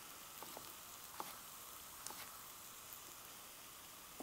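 Potatoes frying in hot olive oil, a faint steady sizzle, with a few light taps of a knife cutting carrot on a plastic cutting board.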